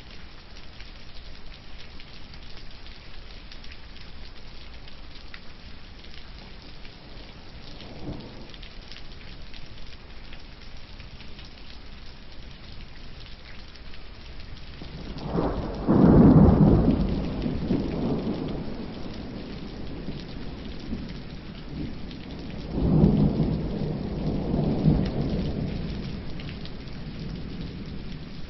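Steady rain falling, with two long, low rumbles swelling and fading about halfway through and again near the end.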